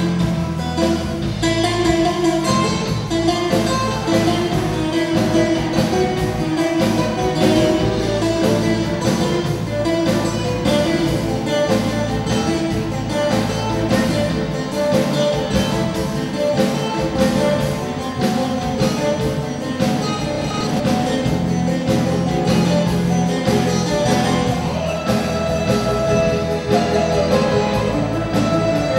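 Greek bouzouki played live with a plectrum: fast runs of picked notes over sustained lower notes.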